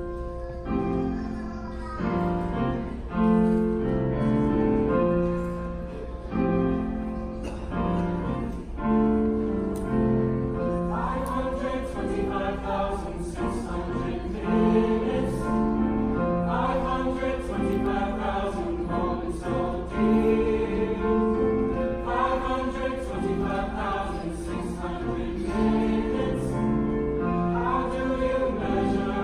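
Mixed high school choir singing in harmony, accompanied by a grand piano, with held chords that change every second or so.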